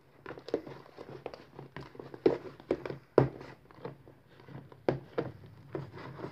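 Green slime being squeezed and worked by hand, giving irregular wet clicks and pops as trapped air bursts, a few of them much louder, over a faint low hum.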